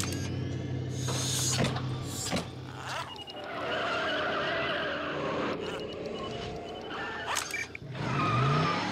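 Car sound effects: an engine running, with several sudden sharp whooshes and a skidding sound, and a rising glide near the end.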